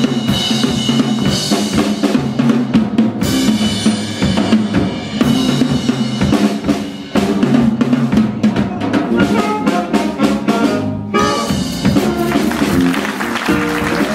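Jazz band playing live, with drum kit strokes and a steady bass line under the ensemble.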